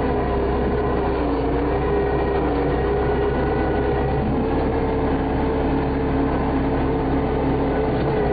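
Engine of an earth-moving machine running steadily while it grades a dirt road, with a slight dip in pitch a second or two in as the load changes.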